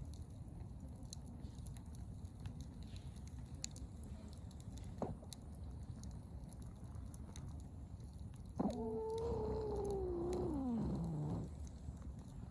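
Campfire burning with faint scattered crackles over a low rumble. About two-thirds in, one drawn-out cry lasting about three seconds slides down in pitch.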